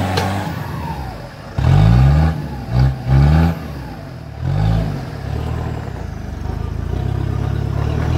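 An off-road 4x4's engine revving hard in four short bursts, the pitch climbing each time, then running more steadily at a lower, even pitch.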